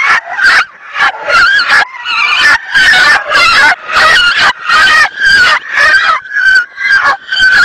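Small puppy squealing and yelping over and over, about three harsh cries a second, as a hen pecks at it.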